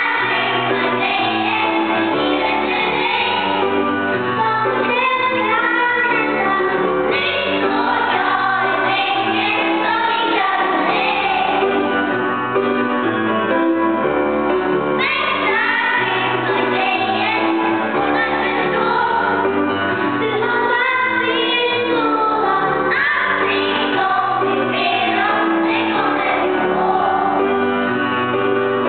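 Children's choir singing a song, accompanied by keyboard chords.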